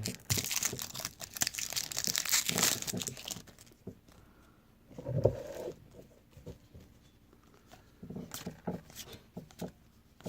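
Plastic wrapper of a trading-card pack being torn and crinkled for a few seconds, then a single thump about five seconds in and a few light clicks of cards being handled.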